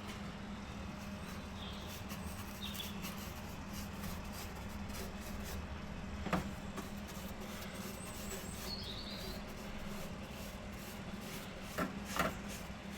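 Steady low background hum with a few faint, short bird chirps, and a sharp knock about halfway through and two more near the end.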